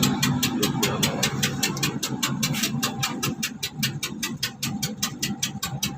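Idling vehicle engine with a sharp, even puffing tick about six to seven times a second: compression leaking past an injector nozzle.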